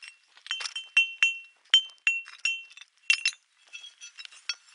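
Flint stones struck one after another, each giving a short, high-pitched ring. There are about a dozen quick taps at a few different pitches, in an uneven rhythm, growing fainter near the end.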